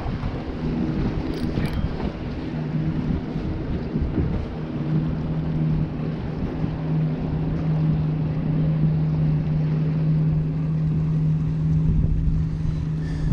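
A steady low engine hum, growing stronger about five seconds in, under wind buffeting the microphone.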